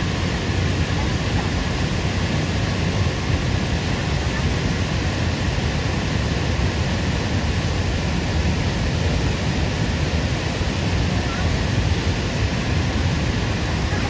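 Waterfall rushing: a loud, steady hiss of falling water.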